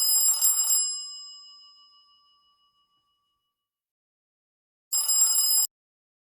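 Android 10 ringtone in the style of an old telephone bell: a rapid metallic bell trill that rings for about a second and fades out over the next two, then starts again near the end and cuts off abruptly.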